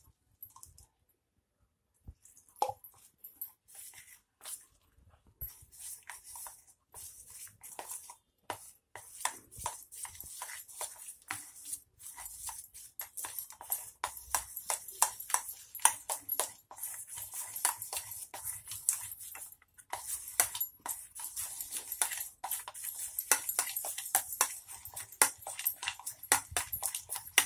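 Gram-flour batter being beaten by hand in a steel bowl: quick wet slaps and clicks. They are sparse at first and become a fast, steady run after several seconds.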